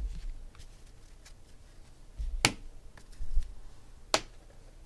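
Three sharp clicks and a few soft thumps on a tabletop as trading cards and card boxes are handled and set down.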